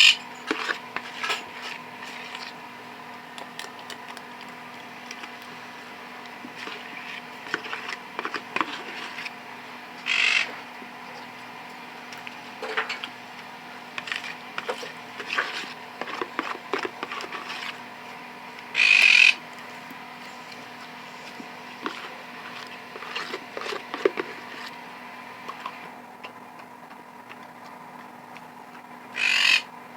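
A dog eating: many small scattered clicks and smacks of chewing and licking, with three short noisy bursts about ten seconds apart, over a steady electrical hum.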